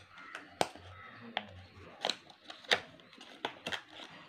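Cardboard product box being opened by hand: about half a dozen sharp clicks and snaps from the flaps and inner tray, with faint rustling between them.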